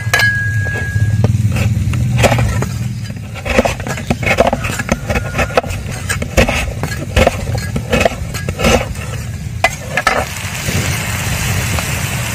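A knife cutting a firm brown block into thin slices on a wooden chopping board: a series of irregular taps and cuts against the board from about two seconds in until about ten seconds in, over a steady low rumble.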